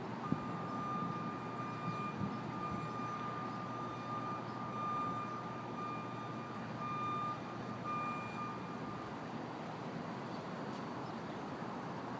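A steady high-pitched tone, like a long beep or whine, holds with a few short breaks and stops about nine seconds in, over a constant outdoor noise of wind and distant rumble.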